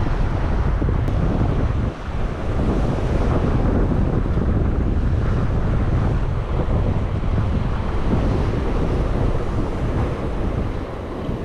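Wind buffeting the microphone over the steady wash of ocean swell breaking on the rocks.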